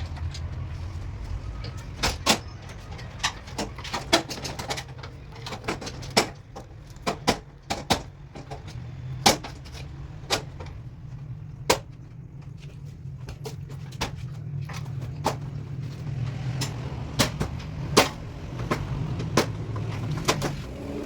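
Sharp knocks and taps, irregularly spaced at roughly one a second, over a steady low hum.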